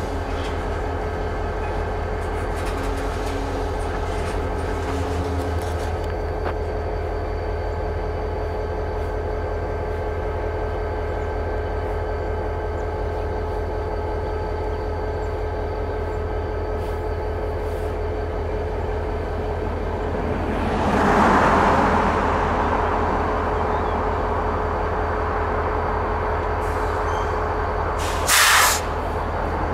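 Norfolk Southern diesel locomotives idling at the head of a standing freight train, a steady hum of several tones over a low throb. About two-thirds of the way through, a loud rush of air hiss lasts a couple of seconds, and near the end comes a short sharp hiss.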